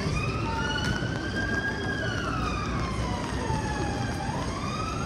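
Emergency vehicle siren wailing, its pitch rising slowly, falling over about two seconds, then rising again near the end, over steady city street noise.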